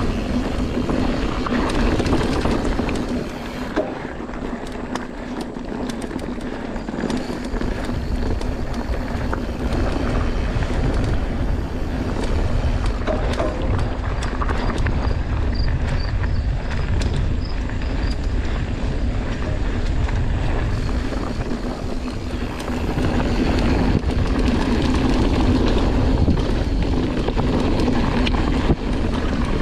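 Mountain bike riding fast down a dirt trail: wind rushing over the camera microphone and the knobby tyres rolling over dirt and roots, with short clicks and rattles from the bike over bumps.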